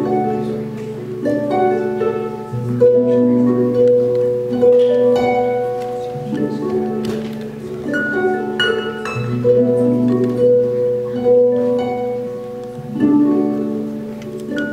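Lyon and Healy Concert Grand pedal harp played through looping effects: plucked notes ring out over low tones held for a few seconds at a time, which shift every couple of seconds.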